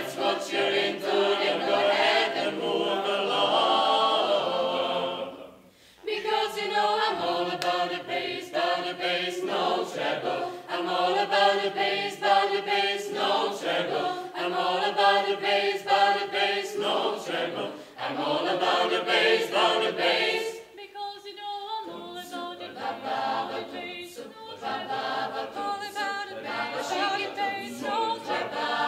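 Mixed youth choir singing a cappella in several parts. A held chord for about five seconds and a brief break, then a rhythmic passage with sharp clicks running through it.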